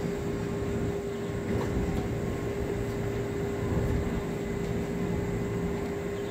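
KRL electric commuter train standing at the platform with its doors open, its onboard equipment humming steadily. The hum carries one constant mid-pitched tone over a low rumble.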